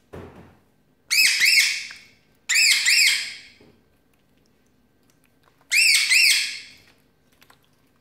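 Cockatiel whistling in three short bursts of quick rising-and-falling chirped notes.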